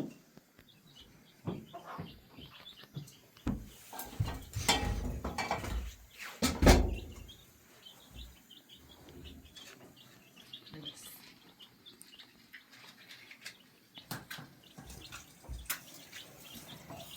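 Small birds chirping, with a few loud knocks and rustling noise from about four to seven seconds in.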